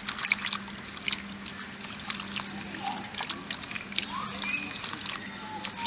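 Chopped purple yam chunks being swished and rinsed by hand in water in a metal pan: light sloshing, with many small clicks and knocks as the pieces bump each other and the pan. A few short animal chirps sound in the background.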